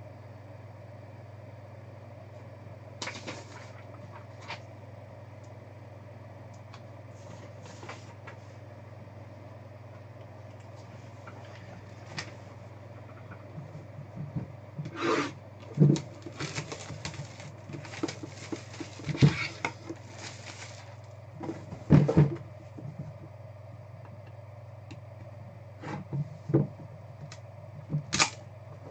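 Cardboard hobby boxes being handled on a table: scattered knocks, slides and rubbing, busiest through the middle, with a few sharper knocks as boxes are set down. A steady low hum runs underneath.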